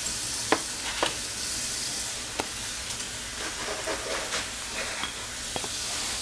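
Egg yolk and mustard being whisked in a bowl to make mayonnaise: a continuous scraping hiss of the beating, with a few sharper clicks of the whisk striking the bowl.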